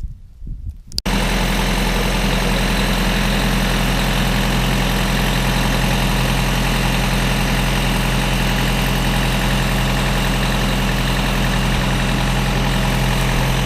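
Kubota tractor's diesel engine idling steadily, cutting in abruptly about a second in after a few soft thumps.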